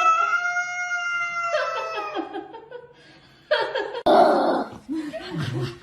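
A pet's long, drawn-out howl on one slightly falling pitch, ending about a second and a half in, then a shorter call. After a short lull, louder, rougher animal or vocal sounds follow.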